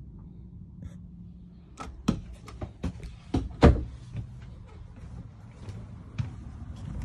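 Knocks and clicks of someone walking through a motorhome and handling its doors: a quick run of sharp taps and bumps, loudest about three and a half seconds in, with a few more near the end, over a low steady hum.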